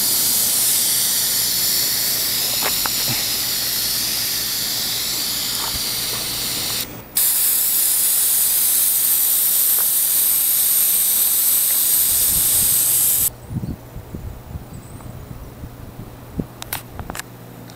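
Spray wand hissing steadily as it sprays thick white elastomeric roof coating onto a flat roof. The spray breaks off briefly about seven seconds in, then cuts off sharply about thirteen seconds in.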